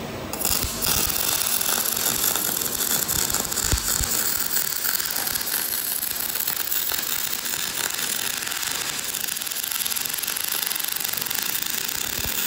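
Robotic MIG welding arc crackling and sizzling steadily as the wire-fed torch lays a weld, throwing spatter; it strikes up about half a second in.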